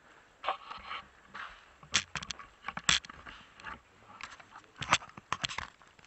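Footsteps and handling noise: irregular sharp clicks and crunches with short scrapes and rustles, heaviest about two seconds in and again near the end.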